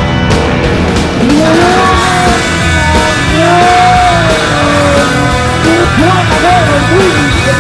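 Loud rock music, with an off-road 4x4's engine revving up and down again and again as it climbs a dirt obstacle.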